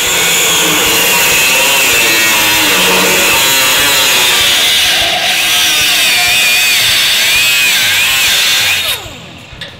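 Cut-off wheel slicing through a steel frame rail brace: a loud, steady shriek whose pitch wavers as the wheel bites. Near the end the tool is shut off and the wheel spins down.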